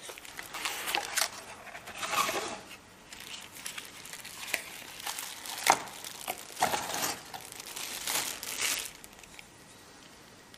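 Clear plastic wrapping crinkling and crackling as it is pulled off a small new instrument gauge, along with a light cardboard box being opened and handled. The crackles come in irregular bursts and stop about a second before the end.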